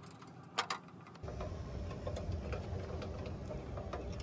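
Two quick sharp clicks of wire strippers on insulated wire, about half a second in, followed by a steady low rumble of background noise.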